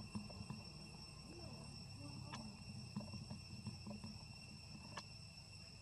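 Faint, steady high-pitched insect drone, cricket- or cicada-like, with a low murmur underneath and two sharp clicks, about two seconds in and near the end.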